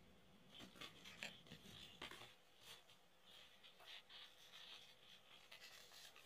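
Faint rustling and light clicks of baseball trading cards being handled: cards slid off a stack, turned over and rubbed against each other.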